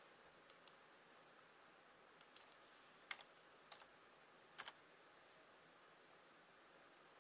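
Computer mouse clicked in quick double-clicks, five pairs of sharp clicks over about four seconds, against faint room hiss.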